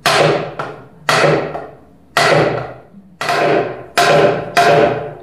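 Hammer blows knocking wooden spindles and an arm home into a Windsor chair's walnut seat. There are seven strikes about a second apart, the second one light and the last two closer together, each with a short wooden ring.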